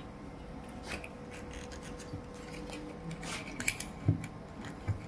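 Faint paper rustling, scraping and small clicks by hand as a replacement voice coil, packed with paper shims, is pressed down over the pole piece of an 8-inch speaker's magnet. A few sharper clicks come around three to four seconds in, over a faint steady hum.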